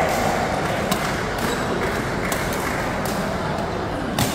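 Badminton rally: sharp clicks of rackets striking the shuttlecock, about half a dozen spread across a few seconds with the loudest near the end, over the steady background noise of a large indoor hall.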